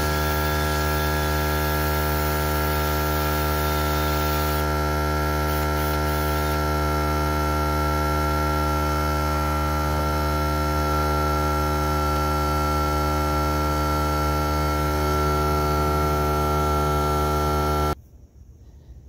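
Air compressor motor running with a loud, steady, unchanging hum, which cuts off suddenly near the end.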